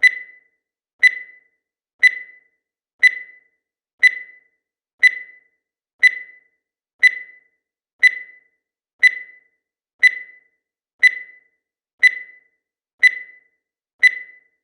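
Digital timer beeping once every second: short, high electronic beeps, each dying away quickly, counting off the seconds.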